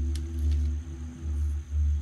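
Soft background music with a low, pulsing bass, and two faint light clicks early on.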